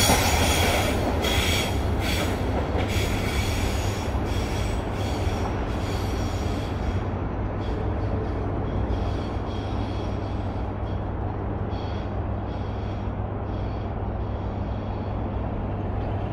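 The last container flat wagons of a freight train roll past on the rails. The wheel noise fades away over about seven seconds as the train recedes, leaving a low steady rumble.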